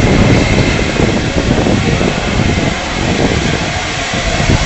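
LNER A4 Pacific steam locomotive 60009 running slowly into the station: a loud, steady rumble with uneven low thuds, mixed with wind buffeting the microphone.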